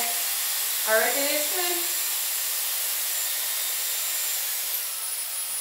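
Dyson Airwrap with its curling barrel attached, blowing air steadily: an even rush of air with a faint high whine that drops slightly in pitch near the end.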